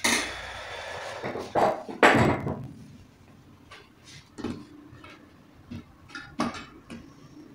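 Table sounds of a meal eaten by hand: a loud clatter about two seconds in, then a few quieter knocks and clinks of spoons and bowls.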